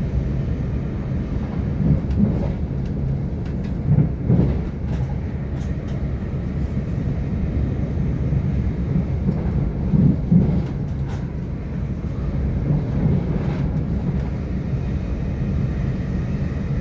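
A train running past on the rails: a steady heavy rumble with a few louder knocks from the wheels along the way.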